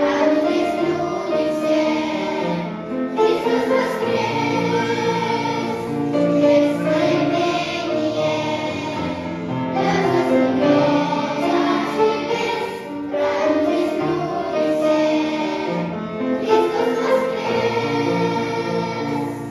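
Church choir singing a hymn in phrases a few seconds long, with short breaks between them.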